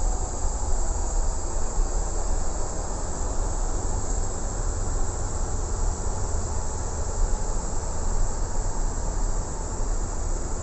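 Steady rushing hiss over a low rumble: the flight-deck air conditioning and equipment cooling fans of a powered, parked Boeing 777-200.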